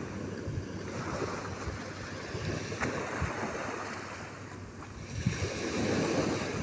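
Sea surf washing onto a beach, with wind on the microphone; a wave swells up louder near the end.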